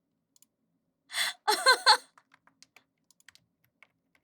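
A woman's short vocal outburst about a second in: a breathy burst, then three quick pitched bursts. After it come faint, irregular clicks of typing on a computer keyboard.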